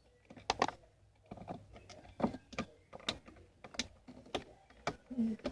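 Light plastic clicks and taps, a dozen or so at irregular spacing, from the small plastic parts of a BMW E46 window switch module being handled and fitted.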